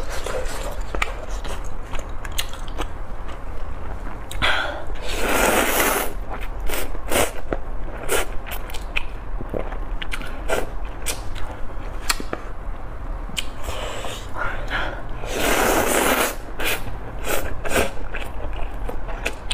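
Close-miked eating: a person slurping and chewing spicy instant fire noodles with chewy rice cakes, wet mouth clicks throughout and two long slurps, about four and fifteen seconds in.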